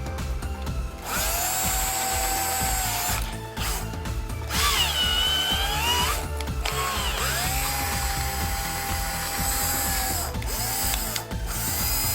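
Bosch GSR 9.6-1 Professional cordless drill running free in about five bursts on the trigger, some held at steady speed and one with the pitch rising and falling as the speed changes. It is a test run after the repair, with the gearbox freshly regreased and a new motor sleeve bearing fitted.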